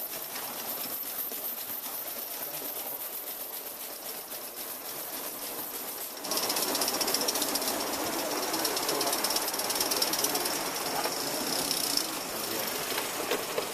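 Gauge 1 live-steam model locomotive working, its exhaust a rapid, even beat under a steam hiss. About six seconds in the sound gets louder and the hiss sharper.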